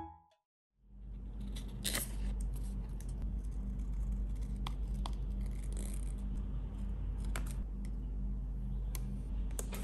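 Small scissors snipping around a paper sticker, a handful of separate snips, the first and loudest about two seconds in, over a steady low room hum.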